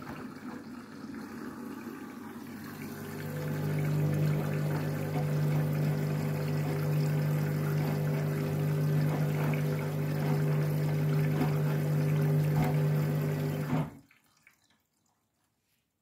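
Candy front-loading washing machine topping up with water mid-wash: water running and splashing into the drum over a steady machine hum. It gets louder about three seconds in and stops abruptly about fourteen seconds in.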